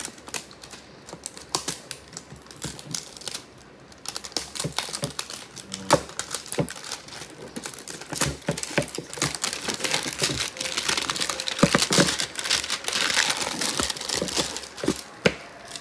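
Clear plastic packaging crinkling and a cardboard box being handled: many small clicks and rustles, with the crinkling densest from about halfway in until shortly before the end.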